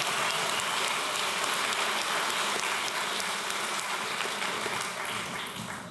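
Audience applauding, a dense patter of clapping that eases off slightly, then cuts off suddenly at the end.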